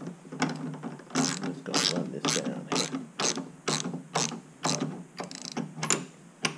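Hand ratchet with a 7/8 socket clicking in short repeated strokes, about two or three a second, as it runs a wheel nut down a new wheel stud held in a vise to clean up the stud's rough threads.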